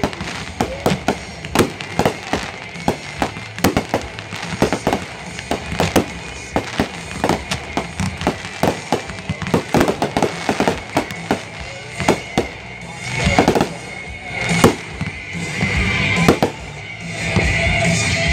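Fireworks display: a rapid barrage of aerial shells and comets bursting, many sharp bangs a second, growing louder and more continuous in the last few seconds.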